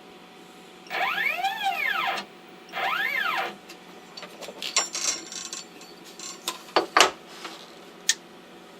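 CNC router axis motors whining through two quick jog moves of the gantry, each rising in pitch and then falling as the machine speeds up and slows down, followed by several sharp clicks and knocks.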